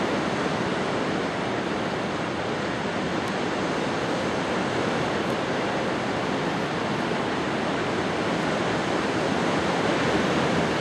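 Steady wash of surf and wind.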